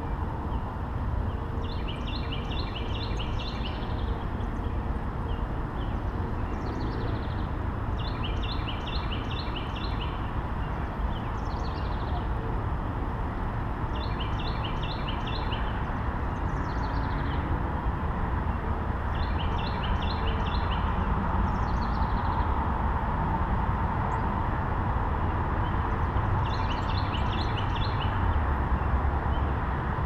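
A songbird singing the same short phrase of quick repeated notes five times, about every six seconds, with softer falling notes between, over a steady rushing background noise.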